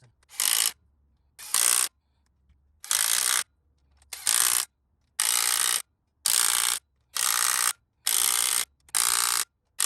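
Ratchet wrench working on bolts: about nine short bursts of ratcheting, each about half a second long, coming roughly once a second in the second half.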